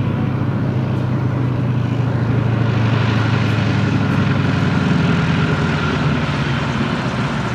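Floatplane's propeller engine running at power as the plane skims across the lake on its floats, a steady, even drone.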